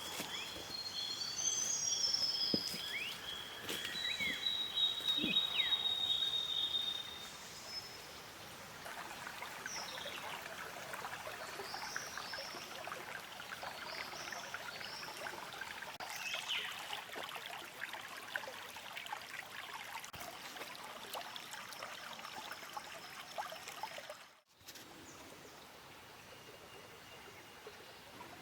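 Creek water trickling and running, with birds calling. Several whistled bird calls sound over the first seven seconds, then the steady water sound carries on alone. After a brief break about 24 seconds in, it is quieter.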